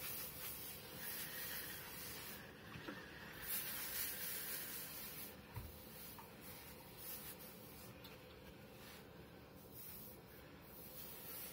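Steam iron hissing in several spells, on and off, as it is pressed and slid along a trouser leg, with the soft rubbing of the iron's soleplate over the fabric.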